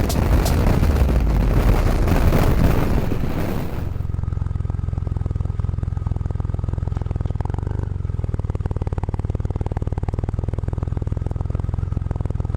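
A loud rushing noise with a few sharp clicks, which breaks off suddenly about four seconds in. After it comes a motorcycle engine idling steadily with an even, fine pulse.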